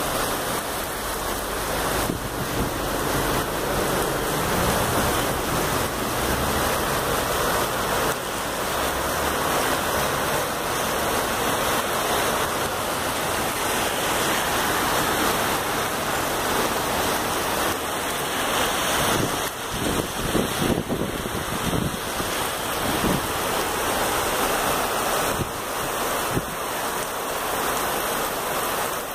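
Heavy rain mixed with light hail falling on a street, pavement and parked cars: a steady, dense hiss.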